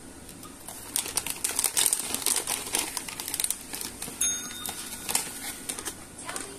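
A dome-shaped pet call bell struck once by a cat's paw about four seconds in, giving a short bright ring. Before it, a few seconds of rapid, irregular crinkling clicks, with more scattered clicks after the ring.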